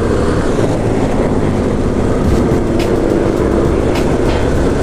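Motorcycle under way at a steady cruise: the engine runs evenly under a heavy rush of wind noise on the camera microphone.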